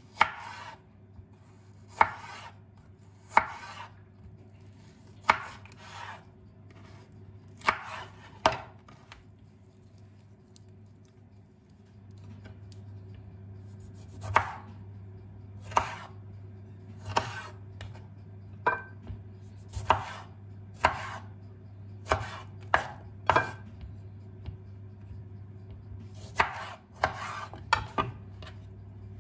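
Knife chopping on a cutting board: single cuts about one to two seconds apart, pausing for a few seconds near the middle. A steady low hum grows louder about twelve seconds in.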